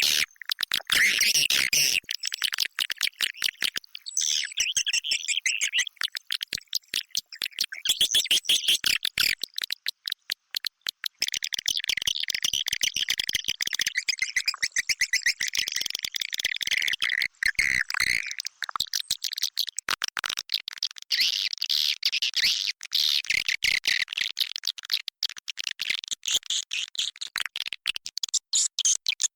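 A recording of swiftlets inside a swiftlet house, used as a lure call: a dense, unbroken chatter of high twittering calls over rapid, fast-repeating clicks.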